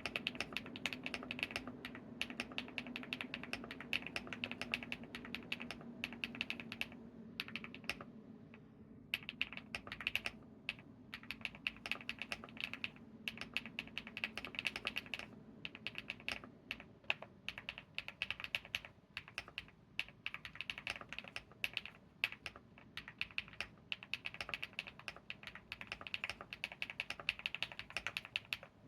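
Typing on an Epomaker x Feker Galaxy80 mechanical keyboard with lubed HMX Hyacinth v1 switches and dye-sub PBT keycaps: a fast, continuous run of clacky keystrokes with a short lull about a third of the way in. The sound is the one the owner likens to marble or mahjong tiles.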